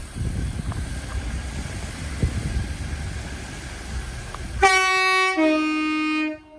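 Train horn sounding one loud blast of under two seconds, starting on a single note and shifting partway into a lower, fuller chord, after several seconds of low rumble.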